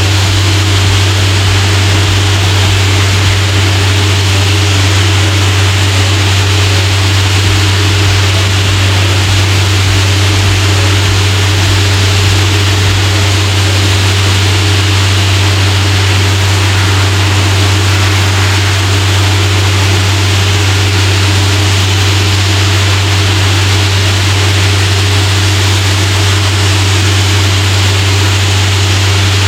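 Diesel air compressor engine running steadily, with a continuous hiss of compressed air from a blowpipe blowing out dust.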